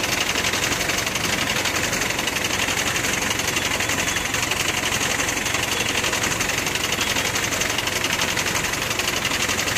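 Heavy diesel engine idling steadily with a fast, even clatter.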